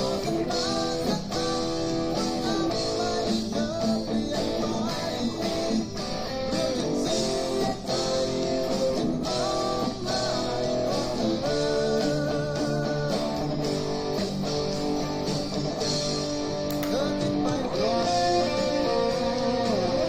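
Eko LP electric guitar played through a Cuvave Cube Baby mini amp and heard from a JBL Clip 3 portable speaker, playing a continuous song part of sustained notes and chords. Near the end there are string bends and vibrato.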